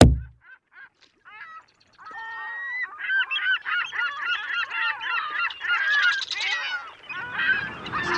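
A low thump, then a flock of birds calling: a few separate calls at first, building after about two seconds into a dense chorus of many overlapping calls, with a low rumble of noise joining near the end.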